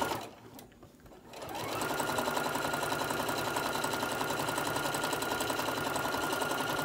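Electric sewing machine stitching a seam through layered fabric. It stops just after the start, starts again about a second and a half in, and then runs at an even speed with a fast, regular stitch rhythm and a steady motor whine.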